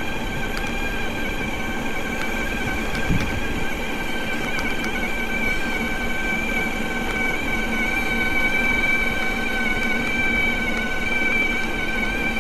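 CYC Photon Gen 2 mid-drive e-bike motor whining steadily under full 2 kW throttle on a 30% climb, its pitch holding even at a constant low speed, over wind and tyre rumble. A single knock about three seconds in.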